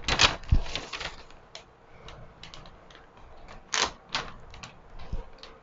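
Irregular clicks, knocks and light rustling as a large white diffuser panel is handled and fixed to a light-stand arm, with the sharpest knocks near the start and a little under four seconds in.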